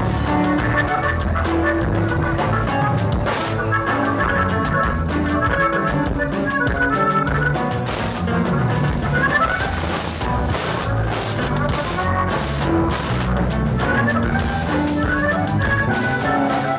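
Live norteño band playing an instrumental passage: a button accordion carries the melody over electric bass and drum kit with cymbals.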